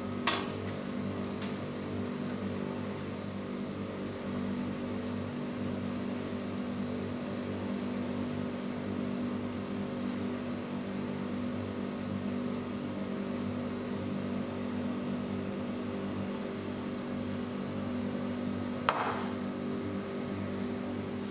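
Steady hum of kitchen machinery, with a light knock just after the start and a sharper knock about nineteen seconds in as a cast-iron teapot is set down on the counter.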